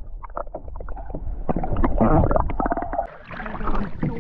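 A kayak crashing into rocks: a run of short knocks and thuds against the hull, over a steady low rumble.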